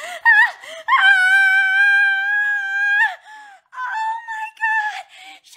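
A woman's high-pitched shrieking, with no words. A few short wavering cries come first, then one long steady shriek of about two seconds, then more wailing cries near the end.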